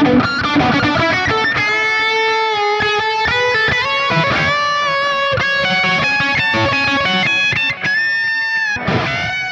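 Photogenic Les Paul-style electric guitar played through a NUX MG-300 multi-effects processor on its lead distortion preset: a single-note lead melody of long held notes linked by quick picked runs.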